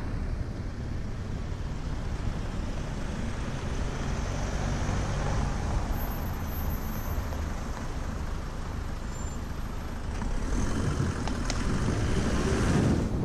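Wind rushing over a cyclist's camera microphone while riding along a road, mixed with the running of motor traffic, growing louder near the end, with a few light ticks.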